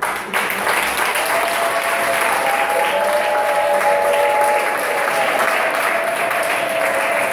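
A crowd clapping and applauding steadily. From about a second in, a few long held notes sound over the clapping.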